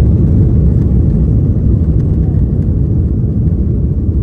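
Airbus A330 cabin noise as the airliner rolls along the ground: a loud, steady low rumble of the jet engines and the landing gear on the pavement, heard from inside the cabin.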